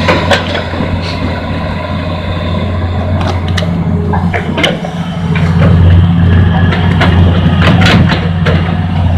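Hitachi Zaxis 210 excavator's diesel engine running steadily as the machine swings and digs into wet mud, growing louder about halfway through as the bucket goes into the mud. Scattered sharp clicks and knocks sound over the engine.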